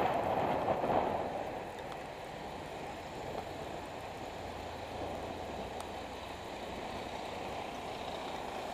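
Steady city road traffic noise heard from a bicycle riding among cars, a van and buses on a wet road, louder for the first second and a half.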